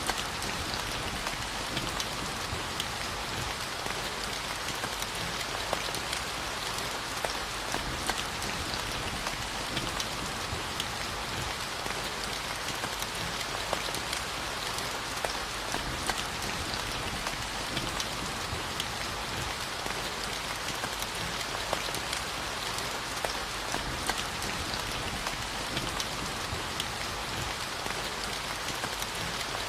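Steady rainfall: an even hiss of rain with many individual drops ticking throughout.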